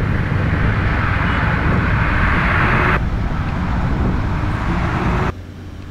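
Motor scooter riding along a road: the engine runs steadily under a loud rush of wind and road noise. About five seconds in it cuts off sharply, leaving a much quieter steady hum.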